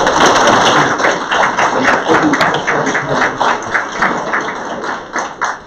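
Audience applauding: many hands clapping at once, starting suddenly and stopping just before the end.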